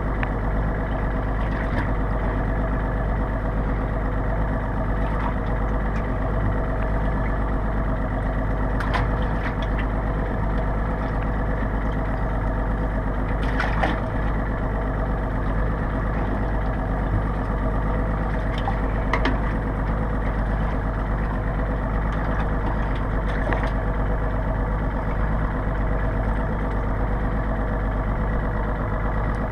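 A boat's engine idling steadily, with a few light clicks or knocks over it.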